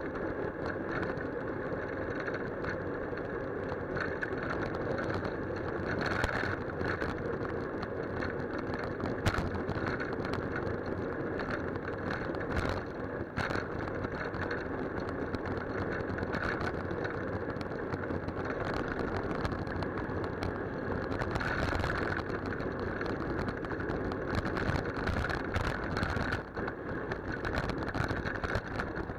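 Steady road and wind noise from a moving bicycle as picked up by a handlebar-mounted camera, with frequent small knocks and rattles as the bike runs over the road surface.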